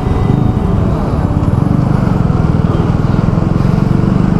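KTM Duke 200's single-cylinder engine running steadily, its low pulsing even and unbroken.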